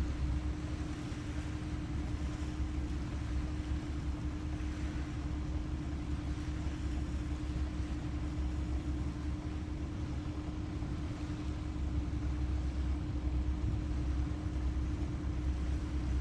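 A motor running steadily: a low rumble with a constant hum, unchanging throughout.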